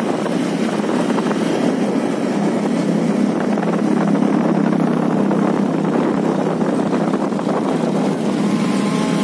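Motorcycle engine running steadily at cruising speed with road and wind noise, heard from the moving bike itself.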